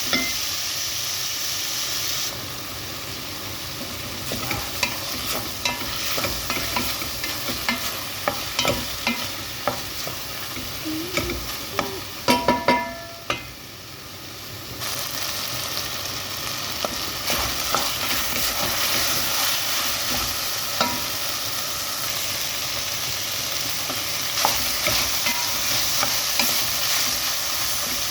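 Sliced chicken breast and vegetables sizzling as they are stir-fried in a pan, with the utensil scraping and clicking against the pan throughout. About halfway through come several loud ringing knocks on the pan, then the sizzle drops briefly before picking up again.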